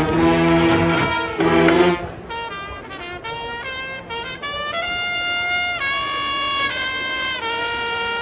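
High school marching band playing loud, punched brass chords. About two seconds in, the full band drops out and a solo brass horn plays a slow melody of long held notes over soft accompaniment.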